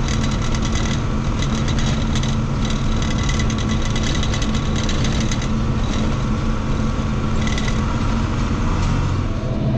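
Heavy farm machinery's diesel engine running steadily under a harvest load, with a fast crackling rattle over it for much of the time.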